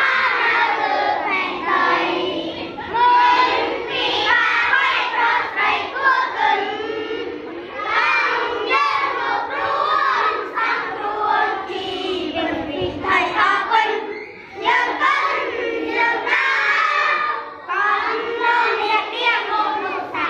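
A group of young schoolchildren singing together in unison, phrase after phrase with brief pauses between lines.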